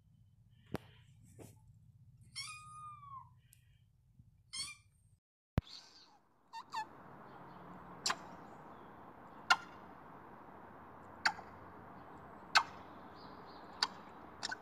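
A kitten gives a few short high mews over a low hum. Then an African grey parrot makes a series of sharp kissing smacks, about one every second and a half, over a steady hiss.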